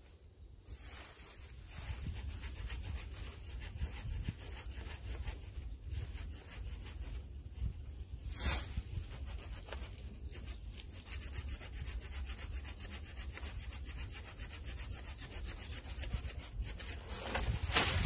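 Folding hand saw cutting through a fallen tree branch, with quick back-and-forth strokes rasping through the wood. Shortly before the end there is a louder, sharper burst.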